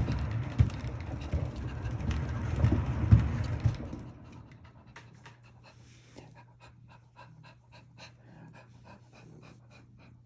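A cat exercise wheel rumbling and knocking under a running cat for about four seconds. Then the rumble drops away, leaving a faint hum and a run of quick, regular clicks.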